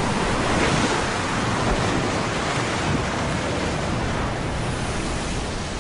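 Stormy sea sound: waves and surf breaking with wind, a steady rushing noise that eases off slightly toward the end.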